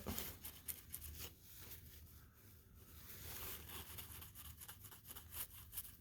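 Faint, irregular scratchy rustling of a trading card being handled: rubbed clean of fingerprints and slid into a plastic penny sleeve.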